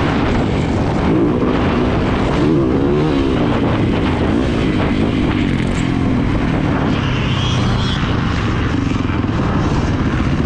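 Yamaha YZ450FX's single-cylinder four-stroke engine under way on a motocross track, its pitch rising and falling with the throttle, over steady wind noise.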